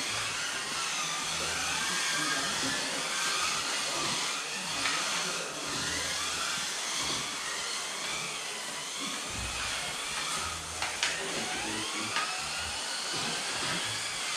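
Several Kyosho Mini-Z RWD cars racing together, their small electric motors whining and rising and falling in pitch as they speed up and slow down through the corners. A few sharp clicks come about eleven and twelve seconds in.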